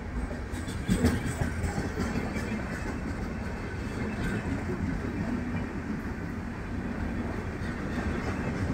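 Passenger coaches of an Indian Railways express train passing at speed: a steady rumble of wheels on the rails with clattering, and a louder knock about a second in.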